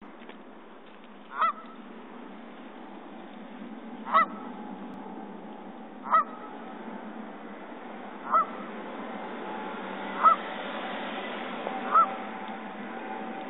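Canada geese honking: six short single honks, spaced about two seconds apart, over steady background noise.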